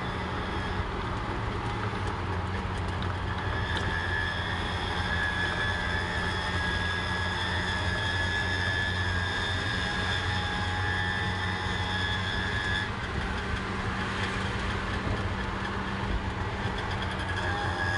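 Auto rickshaw driving at a steady speed, heard from inside the cabin: a steady low engine drone with a high whine over it and road and wind noise.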